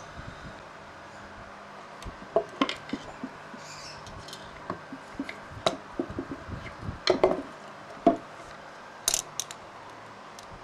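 Metal carburetor parts and hand tools clinking and tapping against each other and a wooden tabletop as the carburetor is taken apart: an uneven scatter of small sharp clicks, with a few louder knocks in the second half.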